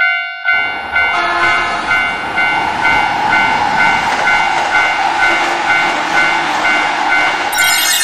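Railroad crossing warning bell dinging about twice a second. About half a second in, the loud rushing rumble of a train passing through the crossing joins it. Near the end there is a brief burst of higher hiss.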